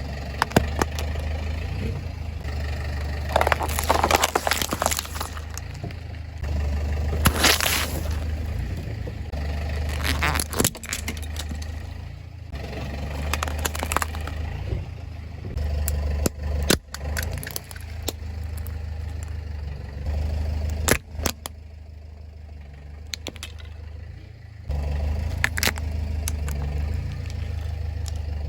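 A car's engine running with a low rumble while its tyres roll over and crush objects, giving a string of sharp cracks and crunches spread through the stretch.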